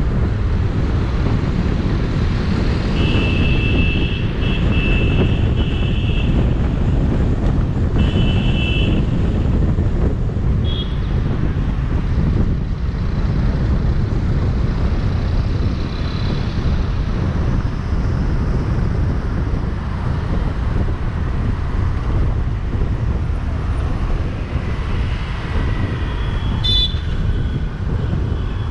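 Car driving in city traffic, with a steady low rumble of road and wind noise. Car horns honk in a string of short two-tone blasts about three seconds in, again around eight seconds in, and once briefly near eleven seconds. A short shrill beep comes near the end.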